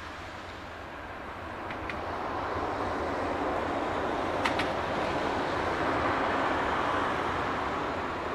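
Jet airliner engine noise, a broad rushing sound that swells about two seconds in and then holds, as the aircraft passes. A few short ticks sit on top of it, the sharpest a quick double tick midway.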